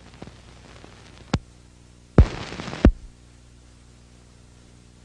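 Logo-intro sound effects: a sharp hit about a second and a half in, then a half-second burst of static-like hiss framed by two heavy hits, settling into a low steady hum.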